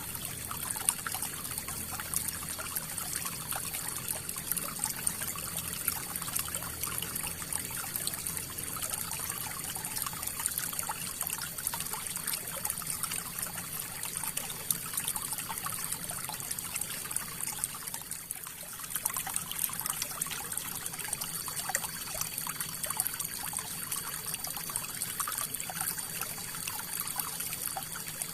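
River water flowing steadily with a trickling rush, briefly softer about two-thirds of the way through.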